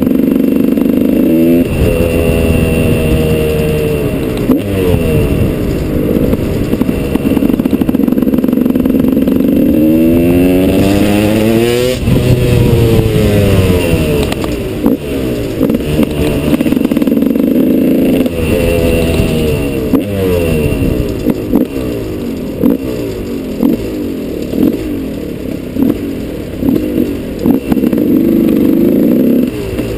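KTM 200 EXC's single-cylinder two-stroke engine, heard close from on board the bike, its revs rising and falling again and again. There is a long climb in revs about ten seconds in that falls away a couple of seconds later, then a run of short throttle blips in the second half.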